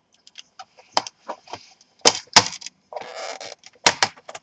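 Sharp clicks and taps of a screwdriver and screws against the plastic bottom cover of an Acer Aspire 5738 laptop, with a short scraping rub about three seconds in.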